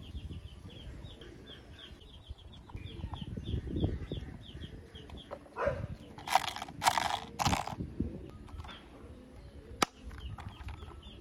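Hard plastic toy motorbike parts being handled and pressed together, with low rubbing and knocking, three short harsh noises a little past the middle, and a sharp click near the end as the handlebar is pushed into place. A bird chirps rapidly in the background, about four chirps a second, for the first few seconds.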